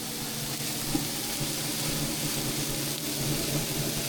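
Chicken and onions sizzling steadily as they cook in a hot pan, with a steady low hum underneath.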